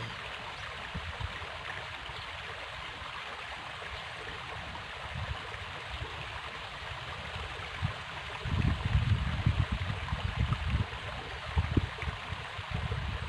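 River water rushing steadily. From about eight seconds in, uneven low rumbling on the microphone joins it.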